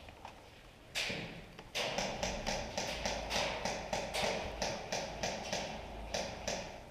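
Quick footsteps, about four a second, over rough ground, starting about two seconds in after a short rustle of clothing or gear.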